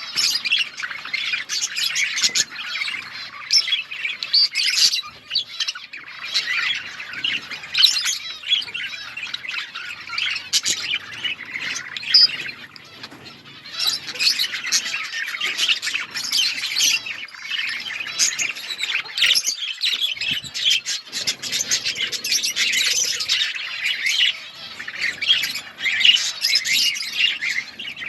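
A flock of budgerigars chirping, warbling and squawking all at once in a dense, continuous chatter, with short lulls now and then.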